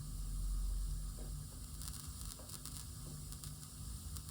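Crackling and popping from a studio monitor fed by the faulty left channel of a Tascam LM-8ST line mixer as its volume knob is turned, scattered clicks in irregular clusters, over a low hum that is strongest in the first second.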